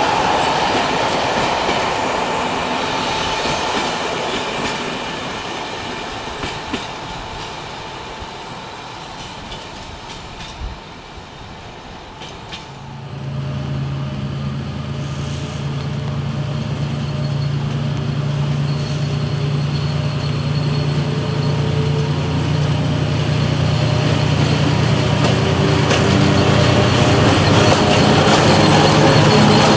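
An electric-hauled passenger train rolling away, its wheel and rail noise fading with a few faint clicks. About 13 seconds in, this gives way to a diesel locomotive's engine running with a steady low drone, growing louder as it approaches hauling a freight train.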